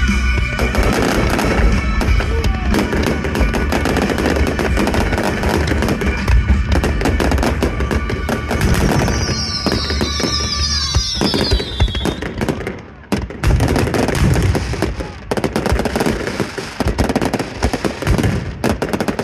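Fireworks display: a rapid, dense salvo of bangs and crackles over deep booms. A cluster of high wavering whistles comes about ten seconds in, and there is a brief lull near thirteen seconds before the barrage resumes.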